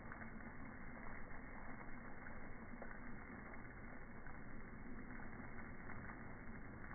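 Steady rushing hiss of a thin water jet spraying from a garden hose nozzle.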